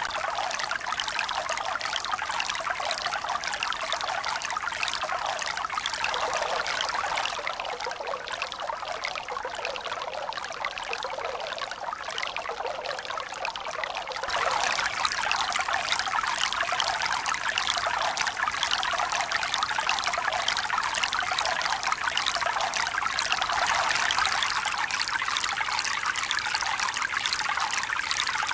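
Running water: a steady splashing rush with no pauses, easing a little for several seconds in the middle and then louder again from about halfway through.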